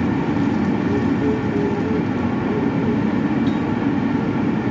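Steady drone of running machinery: an even mechanical noise with a low, slightly wavering hum.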